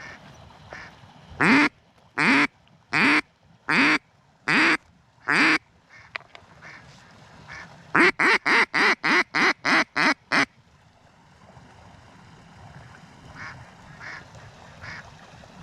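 Live decoy duck quacking: six loud, drawn-out quacks about three-quarters of a second apart, then a few seconds later a fast run of about nine shorter quacks. Fainter quacks come before and after.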